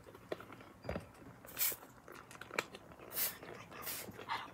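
Trigger spray bottle of Windex squirting, three short hissing sprays a second or so apart, with a few light knocks between them.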